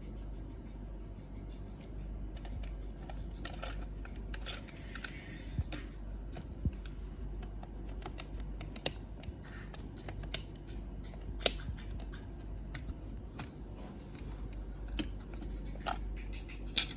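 Small plastic parts being handled: irregular light clicks and taps, a sharper one every second or so, over a low steady hum.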